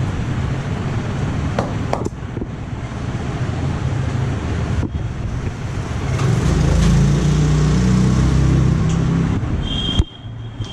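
Road traffic rumbling on the street. A vehicle engine grows louder about six seconds in and stays up for a few seconds, then the sound drops off sharply near the end.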